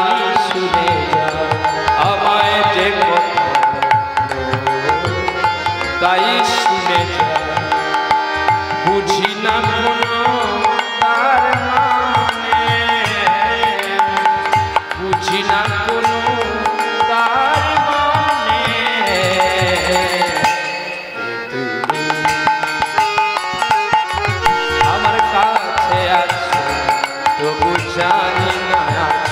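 Instrumental interlude of Bengali kirtan: a harmonium plays the melody over a busy hand-drum rhythm, dropping briefly about two-thirds of the way through before picking up again.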